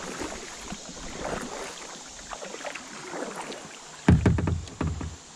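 Kayak paddling on a moving river: splashy paddle strokes and water against the plastic hull over steady flowing water, with a loud low knocking rumble about four seconds in, the loudest sound.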